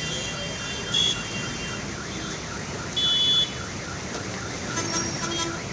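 Street traffic wading through a flooded road, with an electronic alarm warbling rapidly, several rises and falls a second, through the first half. Vehicle horns give a short toot about a second in and a longer blast about three seconds in, the loudest sounds.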